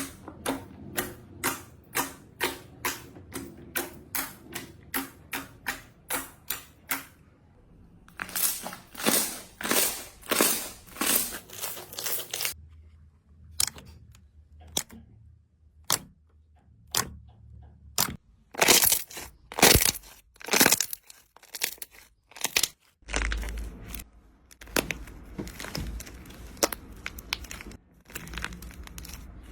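Slime being pressed and squeezed by hand, giving a run of short crunchy crackles and squishes. At first they come about three a second, then they turn louder and slower, and the texture changes a few times as different slimes are worked.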